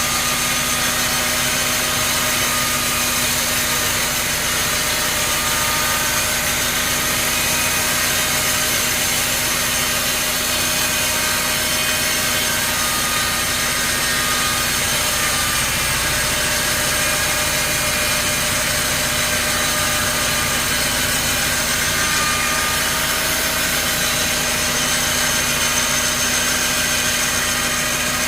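Sawmill machinery running steadily: a constant engine hum under a dense high hiss, with no change in pitch or loudness.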